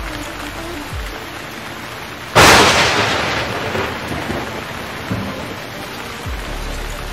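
Heavy rain hissing on a jeep's tarpaulin cover. About two seconds in, a sudden loud crash of noise breaks in and fades over a second or so.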